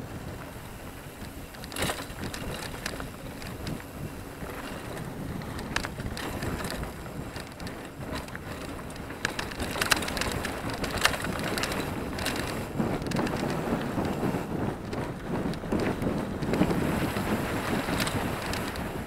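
Mountain bike ridden fast over a dirt trail: tyre rumble and wind buffeting the microphone, with frequent short rattles and knocks from the bike over bumps. It gets louder from about ten seconds in.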